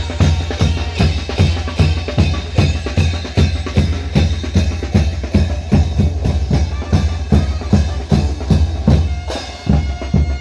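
Mexican brass band (banda) playing live, the bass drum and snare keeping a steady, quick beat under the wind instruments.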